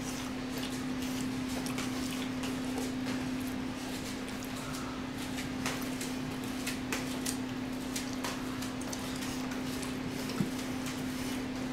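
Close-up eating sounds: chewing and mouth smacks with scattered light clicks, one sharper click about ten and a half seconds in, over a steady low hum.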